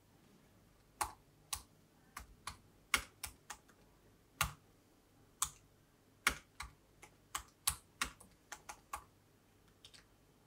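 Typing on a MacBook Pro laptop keyboard: about twenty separate keystrokes at an uneven pace, starting about a second in, with two faint final taps near the end.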